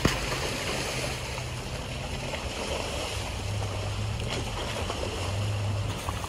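Jeep Wrangler's engine running at low revs as it crawls over a rough dirt trail, its note dropping and then rising again about halfway through. Wind noise on the microphone.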